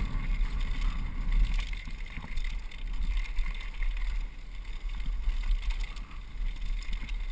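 Wind buffeting a helmet camera's microphone as a downhill mountain bike runs fast down a dirt singletrack, with a low steady rumble and frequent small rattles and knocks from the bike over the rough ground.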